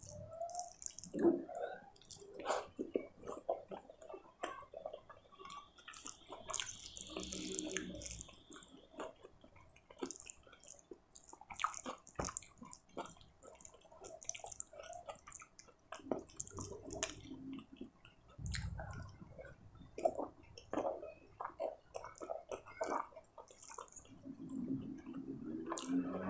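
Close-up ASMR eating sounds: wet squelching and sticky clicks as rice and paneer masala gravy are mixed and squeezed by hand, along with wet chewing and lip smacks.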